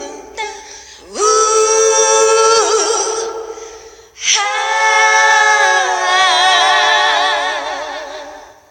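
Male and female voices singing a cappella in harmony: a held chord starting about a second in, then a longer chord with vibrato that fades out near the end.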